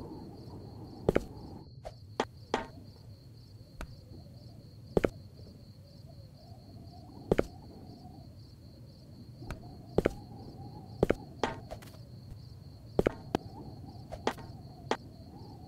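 Sharp, brief clicks or knocks at irregular intervals, about fifteen of them, over a low steady background noise.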